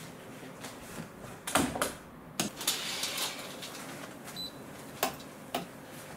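Scattered clicks and knocks as a person moves about a quiet small room, the loudest about a second and a half in, with a brief rustle around three seconds in.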